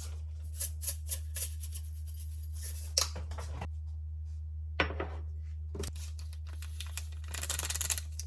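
A string of short, sharp clicks and light knocks from objects being handled, with a quick rapid rattle of clicks near the end, over a steady low hum.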